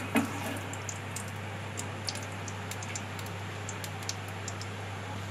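Mustard seeds crackling in hot oil in a frying pan: scattered sharp pops over a steady sizzle, the tempering stage once the oil is hot. A steady low hum sits beneath.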